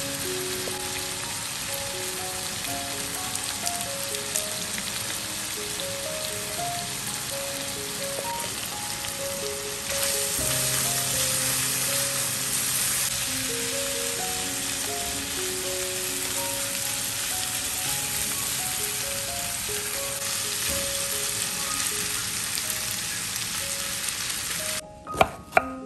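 Ground beef and onions frying in oil in a pan: a steady sizzle that grows louder about ten seconds in, while they are stirred with a spatula. The sizzle cuts off near the end, and two knife chops on a wooden cutting board follow.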